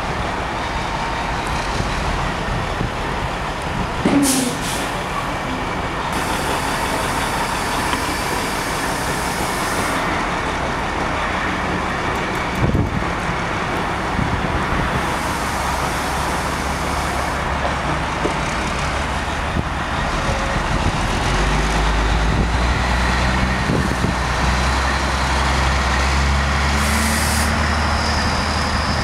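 Peterbilt 357 semi truck's diesel engine running as it slowly hauls a loaded lowboy trailer, its note growing stronger about two-thirds of the way through. Several bursts of air hiss from the truck's air brakes and a couple of short knocks sound over it.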